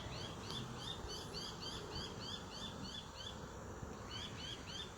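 A small animal chirping in a rapid, even series of short high identical notes, about four a second. The chirps pause about three seconds in and resume for a few more near the end, over a steady low outdoor hiss.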